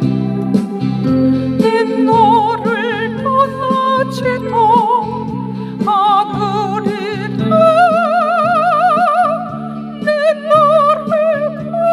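Electronic keyboard playing a slow hymn melody in a sustained lead voice with strong, even vibrato, over held chords and a bass line pulsing on the beat.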